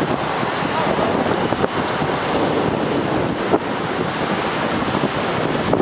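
Strong wind blowing across the microphone, a loud steady rush: inflow wind being drawn into a tornadic supercell.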